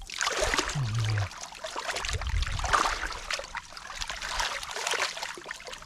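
Shallow canal water splashing and trickling in irregular bursts, with a few dull low thumps around the middle.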